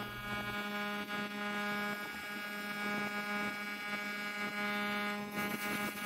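Air compressor running with a steady hum, and a siphon spray gun hissing out a burst of air and glaze about five seconds in.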